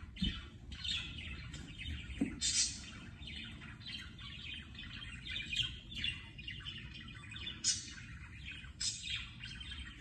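Budgerigar warbling and chattering: a continuous run of short, quick chirps and squeaks.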